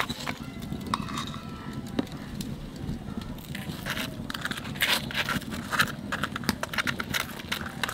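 Metal spoon scraping and tapping as it spreads ghee over tandoori roti in a clay plate: a string of short clicks and scrapes.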